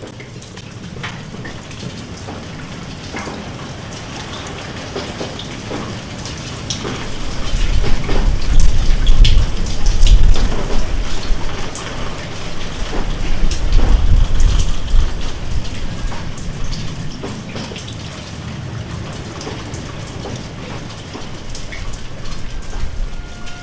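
Rain falling, a steady patter of drops, with two long rolls of thunder: one about a third of the way in, another just past the middle.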